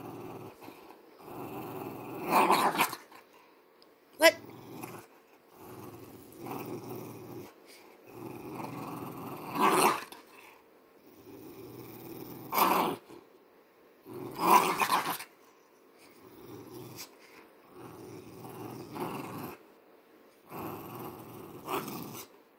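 A bulldog growling over her toy ball in a run of rough growls about every two seconds, several swelling louder at their ends: possessive play-growling as a hand reaches for the ball. One sharp snap about four seconds in.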